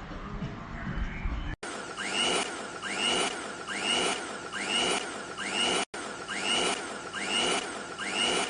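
Pensonic PM-214 electric mixer running: a steady motor whine with a swell that repeats a little faster than once a second. The first second and a half holds a deeper, different sound, which ends at a sudden cut.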